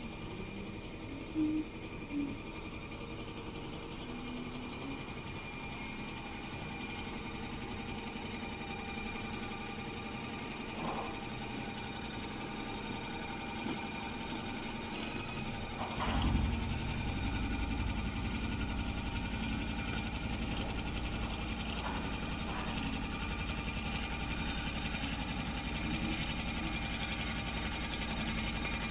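Richpeace computerized heating-wire sewing machine running, a steady mechanical whir. About halfway through there is a knock, and after it the machine sounds louder and deeper.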